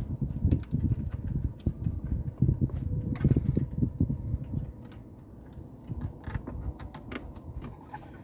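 Plastic clicks, knocks and handling rumble as a stiff wiring plug is squeezed and tugged at the back of a car stereo head unit. The noise is busiest in the first five seconds and fainter after that.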